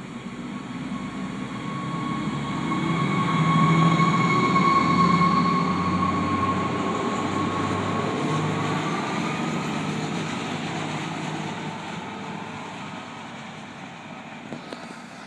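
NJ Transit RIVER Line diesel-electric light rail railcar pulling away from the platform. Its engine rumbles under a steady high whine that bends up slightly partway through. It grows louder for the first few seconds, then fades as the train draws off into the distance.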